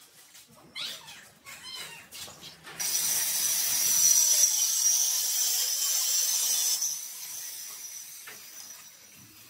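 A cloth rubbing and squeaking on glazed ceramic wall tiles as they are wiped clean. About three seconds in, a loud, steady, high hiss starts and fades out after about four seconds.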